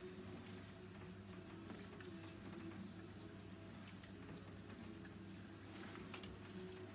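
Salon backwash shower head spraying water over lathered hair into the basin, rinsing out the shampoo: a faint hiss and spatter with small clicks, over a steady low hum.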